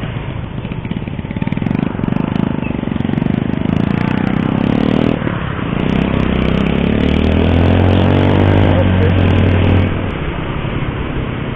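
Motor scooter engine running under way, with rising pitch as it speeds up from about halfway through, then easing off near the end.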